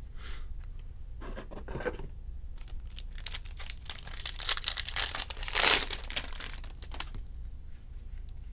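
Foil wrapper of a 2020 Topps Series 2 baseball jumbo pack crinkling and tearing as it is ripped open by hand, loudest about five to six seconds in, after a couple of short rustles.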